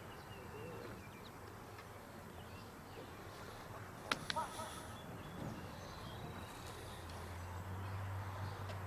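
Open-air background with faint bird chirps. A single brief, sharp sound comes about four seconds in, and a low steady hum rises near the end.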